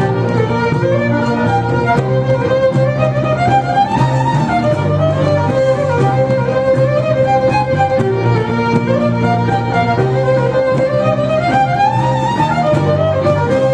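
Celtic fiddle playing a melody that climbs and falls in a phrase repeating about every eight seconds, over held low accompanying notes.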